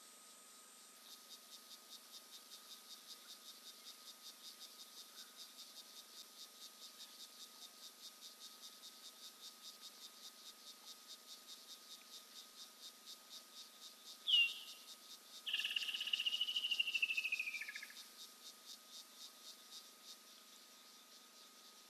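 Insects chirring at night in a high, rapidly pulsing rhythm of about four pulses a second. About two-thirds of the way through, an unseen animal gives a short high whistle, followed by the loudest sound here: a longer pulsed call that slowly falls in pitch for about two and a half seconds.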